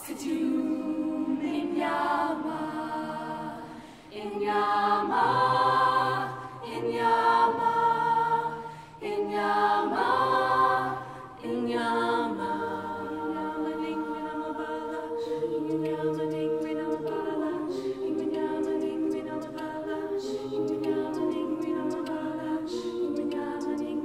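All-female a cappella group singing chords with no clear lyrics, swelling and falling back three times in the first half, then holding steadier sustained chords.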